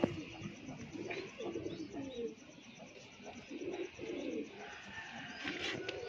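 Domestic pigeons cooing, a run of short low coos one after another, with a few sharp clicks near the end.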